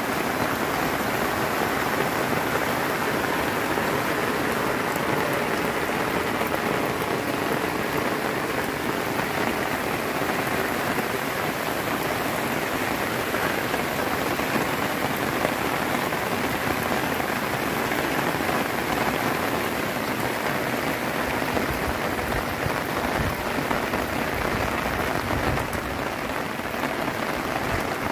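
Heavy rain pouring steadily onto trees and rooftops, a dense, even hiss of falling water.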